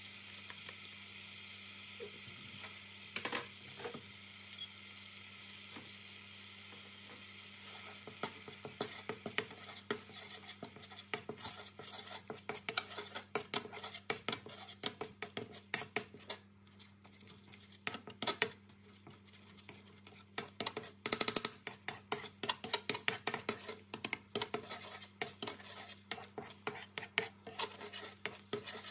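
Metal spatula stirring and scraping Massaman curry paste into frying coconut cream in a wok. It opens with a steady sizzle and a couple of knocks; from about eight seconds in come rapid, continuous scrapes and clatters of metal on the pan.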